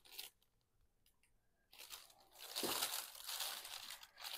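Faint crinkling and rustling of packaging bags of onion sets and garlic being handled. There is a short rustle, a pause of about a second and a half, then about three seconds of steady crinkling.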